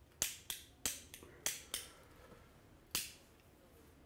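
Cigarette lighter flicked again and again to light a cigarette: about six sharp clicks in quick succession in the first two seconds, then one more about three seconds in.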